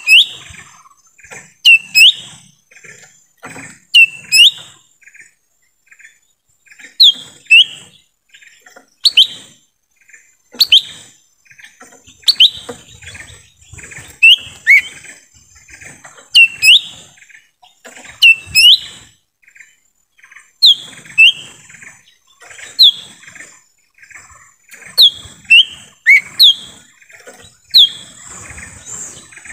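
Cucak ijo mini (a small leafbird) calling: loud, short, sharp whistled notes that sweep in pitch, one to three at a time every second or two. A faint steady high hiss runs behind them.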